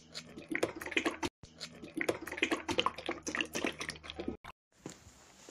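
Dark liquid poured and scraped out of a frying pan into a small bowl: a dense run of crackling clicks over a low hum that cuts off suddenly about four and a half seconds in.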